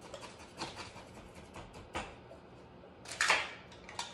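A small spoon digging and scraping clumpy coconut sugar out of a jar: a series of short scrapes and knocks, the loudest about three seconds in.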